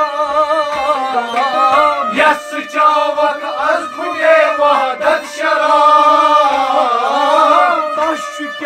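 Kashmiri Sufi kalam sung by male voices, accompanied by harmonium, sarangi and rabab, with a clay pot drum played by hand.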